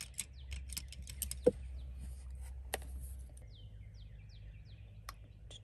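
Birds calling: quick, sharp chips through the first half, then a run of four falling whistled notes about three and a half seconds in, over a low steady rumble.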